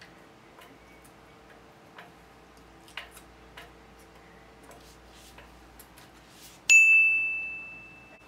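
A single bright bell-like ding sound effect about two-thirds of the way through, ringing out and fading over about a second and a half. Before it come a few faint clicks from chopsticks and eating.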